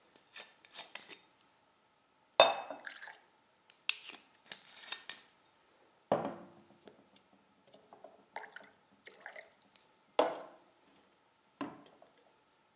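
Bottle, can and shot glass being handled on a hard table: a series of separate knocks and glassy clinks, the loudest about two and a half seconds in, with liquid poured into the shot glass between them.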